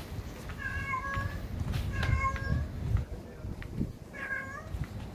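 A domestic cat meowing three times, each meow short and fairly even in pitch.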